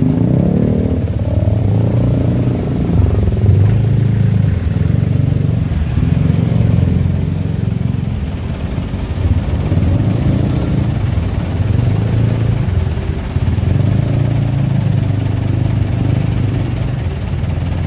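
Motorcycle and car engines idling and revving as queued traffic pulls away, the engine note rising and falling again and again.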